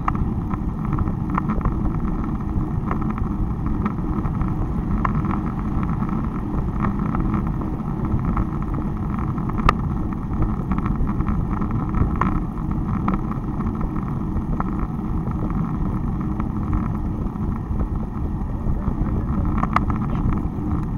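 Wind rushing over the microphone of a bicycle-mounted camera on a moving road bike, with a steady low rumble from the tyres and mount on a concrete road. There are a few sharp clicks along the way.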